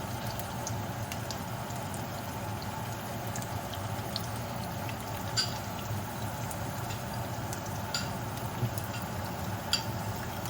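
Garlic and sliced ginger sizzling steadily in hot oil in a pot, with a few light clicks, the loudest about five and a half seconds in and near the end.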